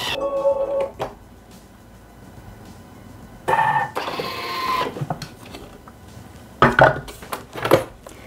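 Thermomix (Bimby) food processor kneading bread dough in its dough mode: the motor whirs in two bursts of about a second and a half, about three seconds apart. Near the end come sharp clicks and knocks as the lid is unlocked and the mixing bowl is lifted out.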